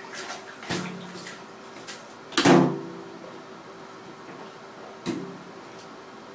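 Three hollow knocks from a baby banging about in a bathtub, the loudest about two and a half seconds in, each with a short ring.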